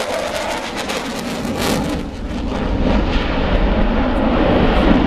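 Loud jet noise from the Eurofighter Typhoon's twin Eurojet EJ200 turbofans as the fighter flies its display. The rushing sound dips about two seconds in, then builds again toward the end.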